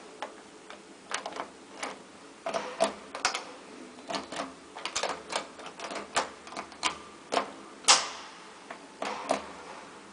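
An irregular series of sharp mechanical clicks and clacks, about two a second, with the loudest clack about eight seconds in.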